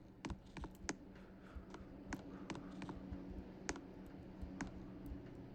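Scattered light clicks, several over a few seconds at uneven spacing, over a steady low hum.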